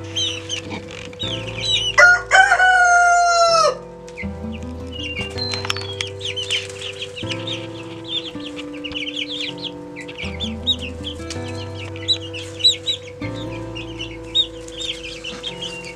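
Young chickens peeping and clucking throughout with short high chirps. About two seconds in, the young Easter Egger rooster gives one loud crow, nearly two seconds long, that falls in pitch at the end. Background music with held notes and a bass line plays underneath.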